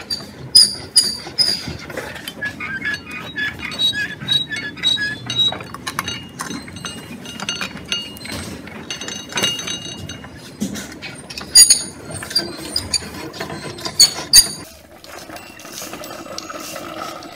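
Wooden hand-operated mechanism striking china plates: a run of clinks and ringing chinks of wood and cutlery on porcelain, with a few sharp loud strikes. It cuts off suddenly near the end and gives way to a softer, steady rattling whir from a rolling wooden cart.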